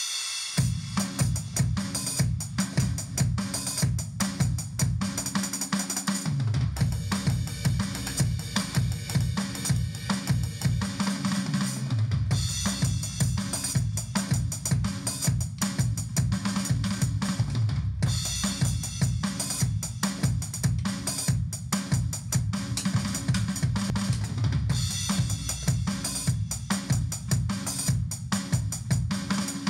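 Electronic drum kit played in a steady, busy beat of kick drum, snare and cymbal pads, starting about half a second in, over a backing track with a bass line.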